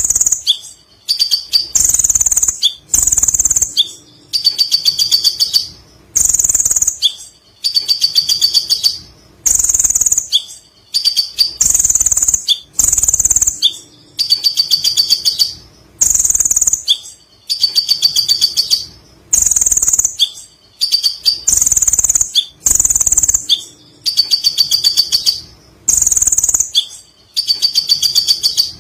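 Kolibri ninja sunbird singing its long chattering 'ngekek' song: a loud, very high burst of about a second followed by a quick run of ticking notes, repeated steadily about every two seconds.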